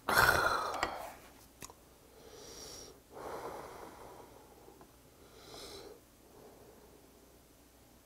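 A man's loud, raspy exhale right after downing a shot of liquor, fading within about a second. Then come three softer breathy puffs as he blows to cool a spoonful of steaming hot porridge.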